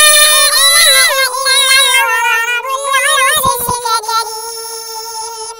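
A high-pitched voice chanting one long melodic phrase of Quran recitation (tilawat), with wavering ornaments in the middle, slowly falling in pitch and fading out near the end.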